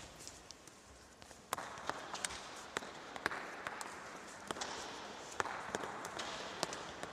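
Scattered sharp taps and footfalls echoing in a sports hall: shuttlecocks thrown at a crouching player, batted away by hand and dropping onto the floor, with players' feet moving on the court.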